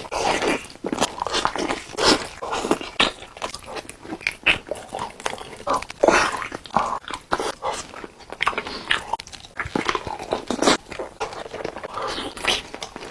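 Close-miked eating of chicken: repeated bites and chewing with crisp crunches coming irregularly, several a second.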